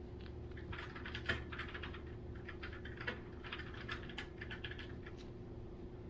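Long-haired Chihuahua puppy chewing and pawing at a plush toy: bursts of quick small clicks and scratches, starting about a second in and dying away near the end.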